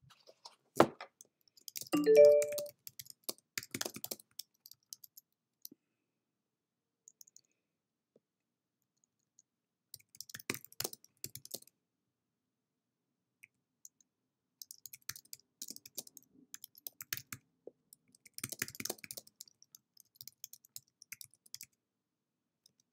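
Computer keyboard typing in several short bursts of key clicks, with pauses between them. A brief pitched tone sounds about two seconds in.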